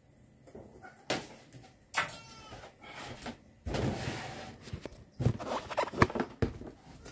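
Irregular clicks, knocks and rustling from hands handling equipment and the phone close to the microphone while a solar charge controller is mounted, with a brief high call about two seconds in.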